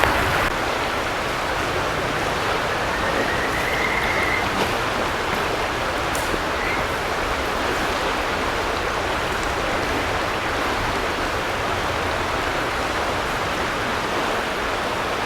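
Steady rushing of river water flowing, with a faint brief whistle about three to four seconds in.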